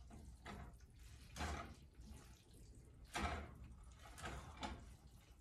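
Spaghetti in tinned jack mackerel sauce being stirred and tossed with a utensil in a stainless steel pot: faint wet squishing, in a handful of soft, short swishes.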